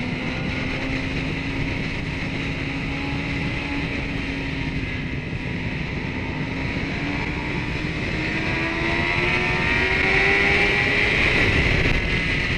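Kawasaki ZX-10R's inline-four engine heard onboard at speed. The engine note holds steady, then rises for several seconds as the bike accelerates, growing louder, and falls away near the end.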